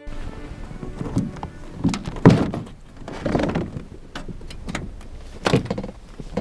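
A string of irregular thumps and knocks with rustling between them, over a low rumble; the loudest knock comes a little over two seconds in.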